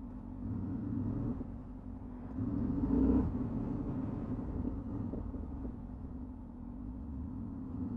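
Yamaha XT660X single-cylinder motorcycle engine running while riding along, with steady road rumble, heard from a camera mounted on the bike. It swells louder briefly about three seconds in.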